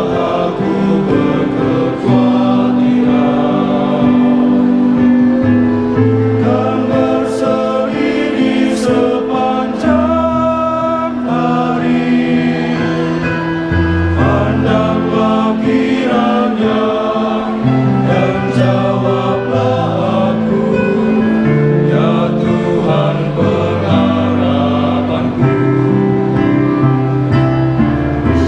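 Male choir singing a hymn in several-part harmony, with long held chords.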